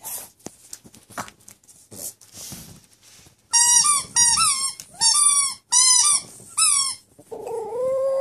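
A Boston terrier chews a rubber chicken toy, squeezing out about five bursts of loud, high squeals from about three and a half seconds in. Near the end the dog starts a long, steady howl.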